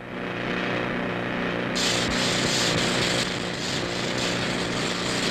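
Ballast tamping machine working: its engine runs with a steady hum, and about two seconds in a loud, harsh noise joins in as the vibrating tamping tines squeeze into the stone ballast under the sleepers.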